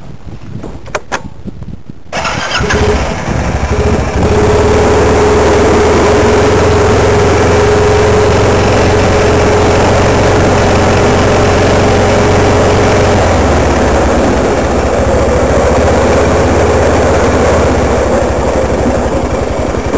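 A few clicks, then a vehicle's engine starts about two seconds in and runs steadily, with a thin steady whine over it. About thirteen seconds in the whine stops and the engine's note drops a little.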